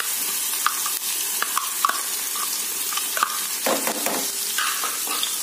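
Chopped garlic frying in hot oil in a pan: a steady sizzling hiss with scattered small crackles and pops.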